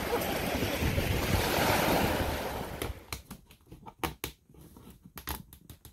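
Small waves washing onto a beach, with wind on the microphone, for about three seconds. Then a string of sharp clicks and knocks as a fluted-plastic (Coroplast) kayak's sidewall and wooden braces are handled.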